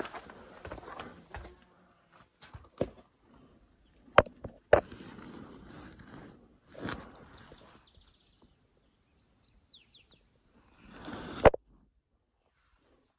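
Footsteps scuffing over rock and gravel, with a few sharp knocks of boots or stones. Faint short bird chirps come in about two-thirds of the way through.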